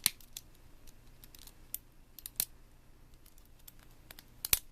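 Small wire cutters gripping and cracking plastic away from brass threaded inserts: a scatter of sharp clicks and snaps, the loudest a quick pair near the end.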